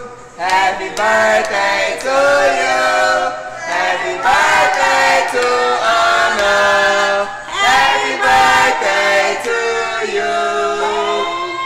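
Vocal music: sung, drawn-out notes that slide between pitches, with little sound of instruments.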